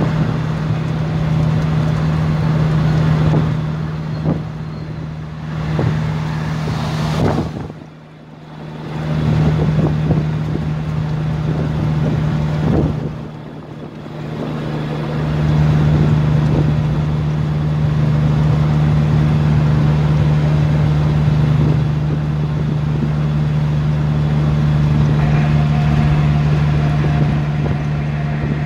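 Car cabin noise while driving at speed on a highway: a steady low engine drone over tyre and road noise. The sound drops away sharply twice, about eight and about thirteen seconds in.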